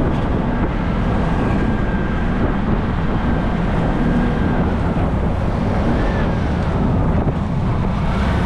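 Wind buffeting the microphone over the steady running of a keke Marwa auto-rickshaw's engine and road noise, heard from inside the open-sided tricycle taxi as it drives.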